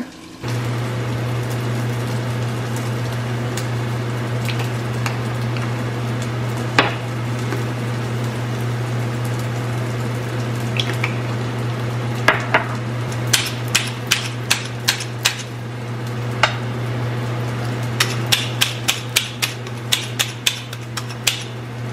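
Chickpeas sizzling in hot olive oil in a skillet, over a steady low hum. In the second half, a run of sharp clicks and taps as the spices are shaken in and a pepper grinder is worked.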